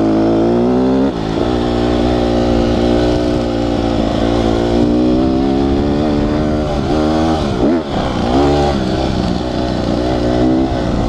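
2018 Honda CRF150R's single-cylinder four-stroke engine ridden hard on a dirt road, revs climbing steadily for several seconds. The pitch drops briefly and picks up again about a second in and once more around seven to eight seconds in.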